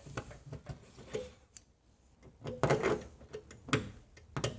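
Scattered light clicks and taps as a stud welder gun and its dent-puller attachment are handled and set against a car door's sheet metal.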